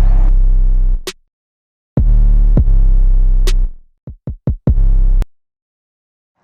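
Electronic music with a deep bass line and drum-machine hits. It stops dead about a second in and resumes about a second later. Just after four seconds there is a quick run of short stabs, and the music cuts to silence a little after five seconds in.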